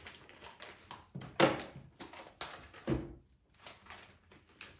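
Clear plastic vacuum-sealer bag crinkling and rustling as it is handled and opened out, with a dull thunk near three seconds in as the vacuum sealer's lid is lifted open.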